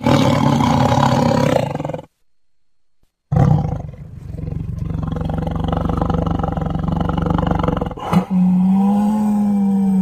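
Tiger vocalising in separate spliced recordings: a loud roar cut off sharply about two seconds in, then after a second of silence a long low rumbling growl. Near the end a click is followed by a steadier, evenly pitched roar.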